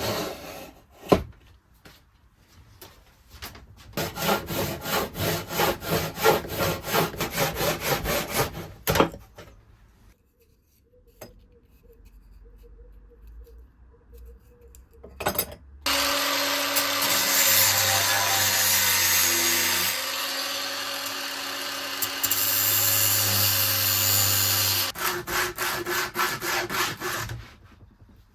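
Quick, rhythmic back-and-forth hand-tool strokes on wood, in two bursts. After a quiet stretch, an electric power tool runs steadily for about nine seconds, then the hand strokes resume briefly near the end.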